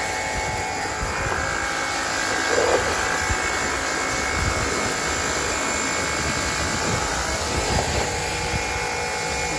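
Hyundai HYB80 electric pressure washer running steadily while drawing its water from a jug, its jet spraying onto a car's doors and windows.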